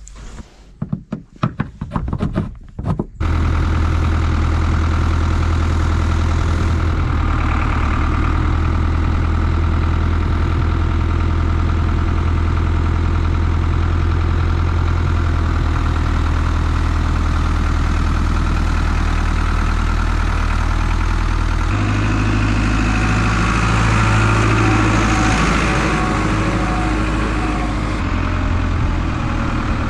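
Diesel engine of an International tractor with a front loader, running steadily, its revs rising about two-thirds of the way in. It is preceded by a few short knocks of the plastic log-bin lid being handled.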